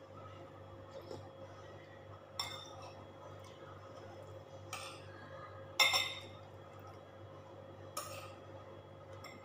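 Metal fork and spoon clinking against ceramic bowls and plates while eating, four separate clinks with the loudest about six seconds in. A steady low hum runs underneath.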